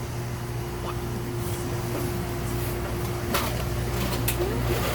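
Steady low electrical hum of store machinery with a constant mid-pitched tone, broken by two sharp clicks about three and four seconds in.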